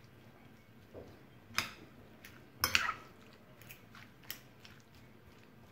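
Metal spoon stirring a wet chotpoti mixture of peas, mashed potato and chopped vegetables in a glass bowl: soft squelchy mixing with a few sharp clinks of the spoon against the glass, the loudest about one and a half and nearly three seconds in.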